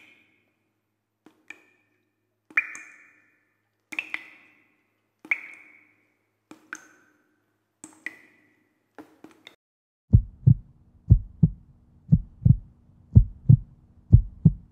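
A heartbeat sound effect: low double thumps, about one pair a second, starting about two-thirds of the way through. Before it comes a slow series of single sharp clicks, each with a short ringing tail, about one every second and a half.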